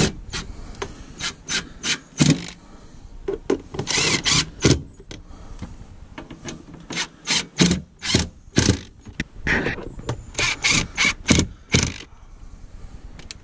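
Hand wrench tightening the hex head screws that hold a steel lockable bin lid to a truck bed floor: irregular clicks and short scraping strokes in bursts with brief pauses.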